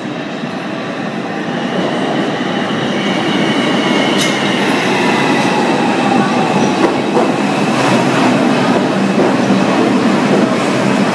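New York City subway 4 train pulling into the station, its wheel and motor rumble growing steadily louder as the cars roll past along the platform. A thin high squeal and a few clacks over the rail joints come through the noise.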